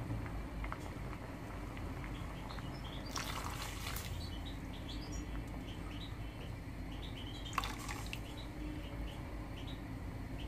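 A glass of milk poured into a stainless steel pot of oats cooking on the stove, a short splash about three seconds in. After it the pot simmers quietly with faint short high chirps, and there is one sharp click near eight seconds.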